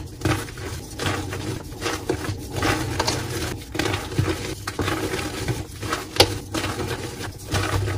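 Blue-dyed gym chalk blocks crushed and crumbled by hand: a dry, irregular crunching and crackling as pieces break and crumble into loose chalk powder. One sharp snap about six seconds in is the loudest moment.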